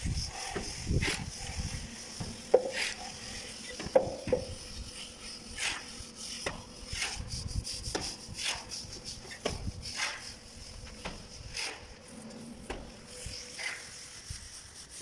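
Hand plastering tools working wet cement mortar: a trowel and float scraping, tapping and slapping against the plastered wall and the mortar bucket, in irregular short scrapes and clicks. The two sharpest knocks come about two and a half and four seconds in.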